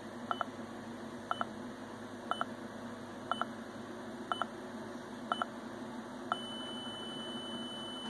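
Small speaker driven by an Arduino Uno giving short electronic beeps about once a second as the dice program counts down at start-up, then a long steady higher beep from about six seconds in that signals it is ready to roll.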